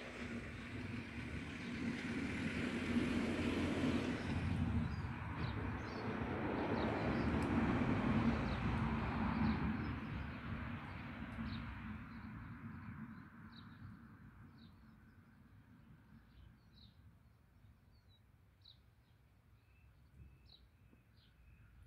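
A motor vehicle passing on the road, its engine and tyre noise swelling to loudest about eight seconds in and fading out by about thirteen seconds. Birds chirp over it, plainly heard once it has passed.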